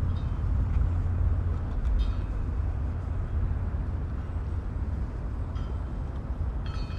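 Wind rumbling on the microphone over outdoor street noise, steady throughout, with a few faint short high-pitched tones about two seconds in and near the end.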